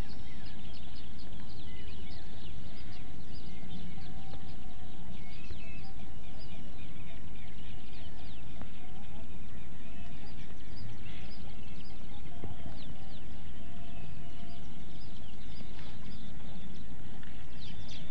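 Outdoor bird chorus: many small birds chirping and calling in quick, irregular notes over a steady low background noise.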